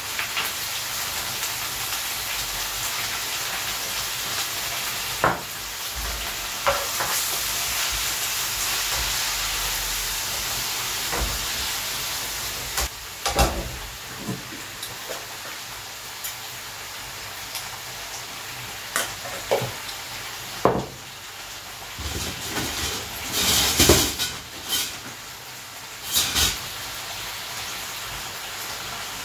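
Oil sizzling steadily in two pans as water spinach (kangkung) is stir-fried and a second batch fries, with a spatula scraping and knocking against the pan now and then. The sizzle eases off about halfway through, and the knocks are loudest a few seconds from the end.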